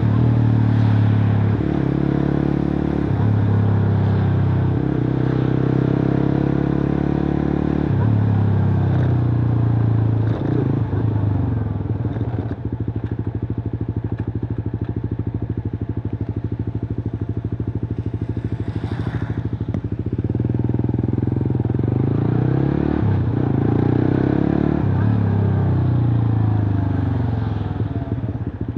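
Suzuki GSX-R150's single-cylinder engine through a cut-open exhaust, running as the bike is ridden. The revs step and glide up and down through the first third, settle to a lower, even beat through the middle, and rise and fall again near the end.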